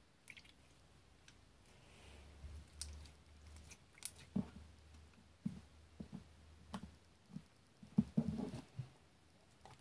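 Slime being worked by hand, giving scattered sticky clicks and small pops, with a short run of squishy crackling near the end.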